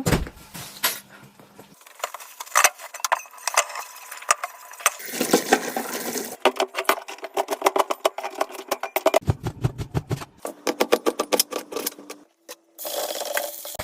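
Kitchen food-prep sounds: a knife chopping fast on a cutting board, a rapid run of knocks, mixed with clinks and clatter of utensils.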